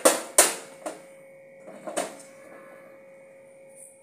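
Sharp metallic knocks and clatter of a steel kadhai and a gas lighter being handled on a steel gas stove top: two loud knocks right at the start, a lighter one just before a second in, and another about two seconds in, over a steady faint hum.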